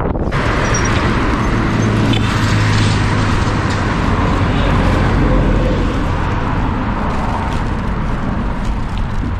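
Steady roadside traffic noise, with a vehicle's low engine hum swelling a couple of seconds in and fading a few seconds later.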